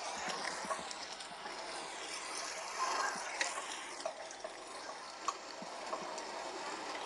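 Street ambience: a steady hiss of traffic with a few scattered light clicks and knocks.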